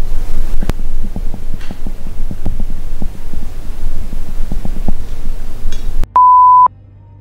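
Spirit box sweeping through radio stations: loud choppy static with irregular clicks. About six seconds in it cuts out to silence, broken by one steady half-second beep.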